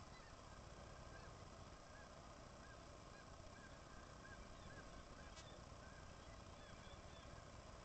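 Faint seabird colony calling on a bird cliff: many short, arched calls follow one another over a steady background hiss. A single brief tick comes about five seconds in.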